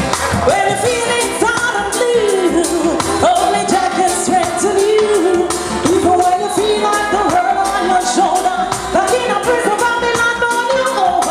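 A woman singing live over a reggae sound-system backing track with a steady beat.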